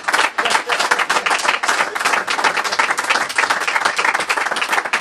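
Live audience applauding, dense steady clapping from many hands.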